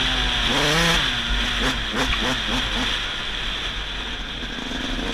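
Dirt bike engine being ridden, its pitch rising and falling with the throttle, with a few quick revs about two seconds in and a lower, steadier note after, over a steady rushing noise.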